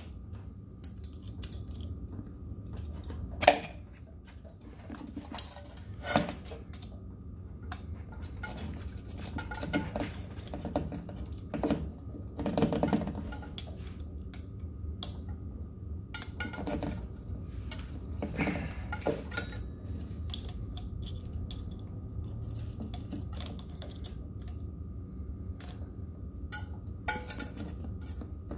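Hands working an electric scooter's knobby tyre on its bolted aluminium hub-motor rim: scattered metallic clinks and knocks, with one sharp knock a few seconds in, and some rubbing over a steady low hum.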